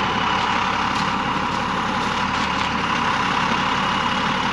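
Tow truck's engine idling steadily, with a thin, faint high-pitched whine held over it.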